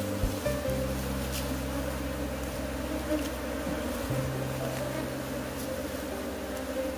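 Steady buzzing of a disturbed Asian honey bee (Apis cerana) colony, with many bees flying close around the opened nest.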